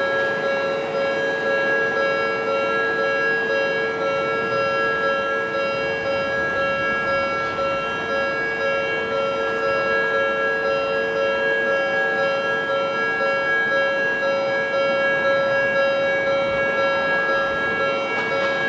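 Japanese railway level-crossing warning bells ringing steadily with the barriers down, two electronic tones of slightly different pitch sounding together.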